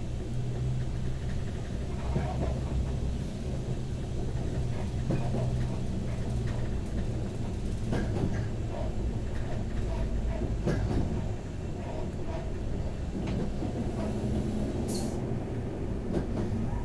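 Pesa 218Mc diesel railcar running along the line, heard from inside: a steady low diesel engine drone over wheel-on-rail rumble, with scattered clicks and rattles. The engine hum eases about eleven seconds in, and a brief high-pitched sound comes near the end.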